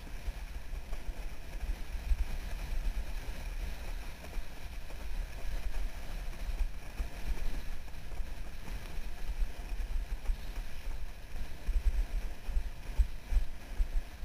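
Wind buffeting the microphone of a camera on a windsurf rig as the speed board planes fast over choppy water, with a steady hiss of water rushing past the board. The low buffeting comes in uneven gusts throughout.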